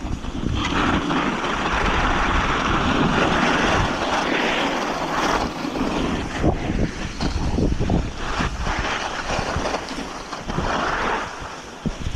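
Wind buffeting the microphone over a steady rushing hiss, broken by many short crunches and knocks in the second half.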